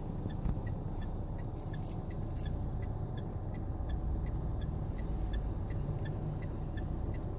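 Steady low rumble of a car heard from inside the cabin, with a faint light ticking about twice a second. About one and a half to two and a half seconds in come two brief rustles as the dashcam and its suction mount are handled against the windshield.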